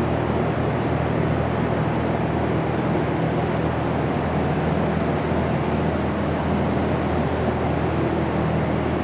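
Steady, loud machine-like noise with a low hum, and over it a thin high whine that starts about a second in and stops shortly before the end, as a soldering gun is held on and heats up.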